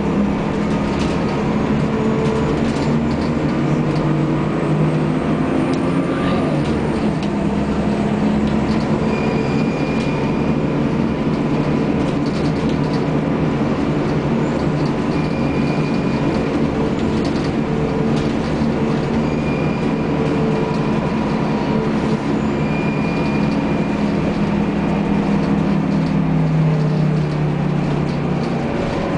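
Scania L94UB city bus under way, heard from inside the passenger cabin: a steady engine drone over road and cabin noise. Its ZF automatic gearbox is very quiet.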